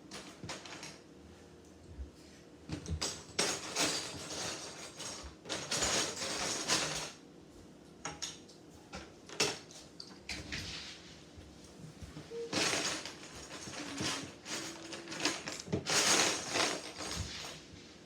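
Plastic Lego bricks clicking and clattering as pieces are picked through, handled and snapped together, in irregular bouts.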